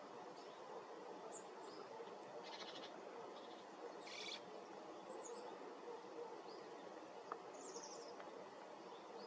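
Faint outdoor hiss with scattered short, high chirps and trills from small birds; the loudest is a brief buzzy call about four seconds in.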